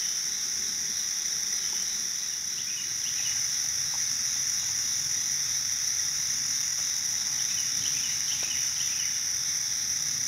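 Steady, unbroken chorus of late-summer insects in woodland, a continuous high-pitched drone. A few faint short chirps come through it twice, about three seconds in and again near eight seconds.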